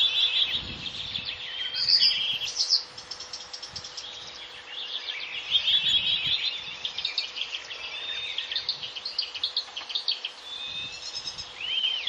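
Recording of a Blyth's reed warbler singing: unhurried phrases of mimicked notes, with dry clicking, ticking calls between phrases. A faint steady hum sits underneath.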